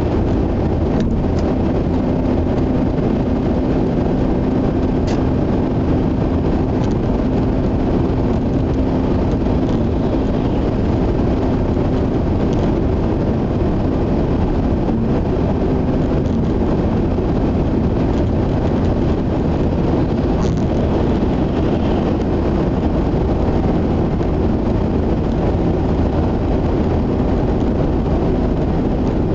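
Steady road and tyre noise heard inside the cabin of a Mazda RX-8 cruising at expressway speed, with the engine running underneath. A steady low hum sits in the noise and fades out about halfway through.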